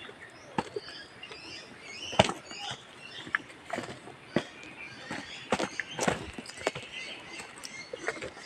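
Footsteps on dry leaf litter and twigs, an irregular run of crunches and snaps with a sharp crack about two seconds in, over faint high chirping from the forest.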